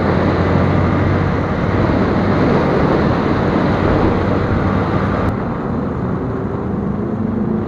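Motorcycle riding noise: steady engine drone under a loud rush of wind on the microphone. The high hiss of the wind drops suddenly about five seconds in.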